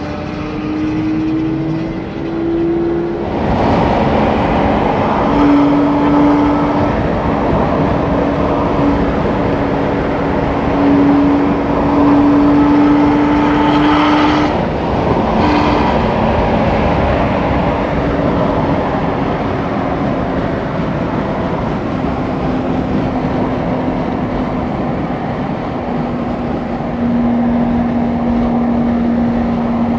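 Lamborghini Murcielago V12 cruising at a steady motorway speed, heard from a car running alongside: a steady engine drone whose pitch drifts only slightly, over wind and road noise that grows louder about three seconds in.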